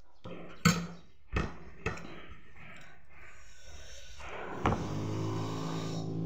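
A few sharp knocks, the loudest about half a second in, two more over the next second and one near the end. Background music with steady sustained notes comes in just after the last knock.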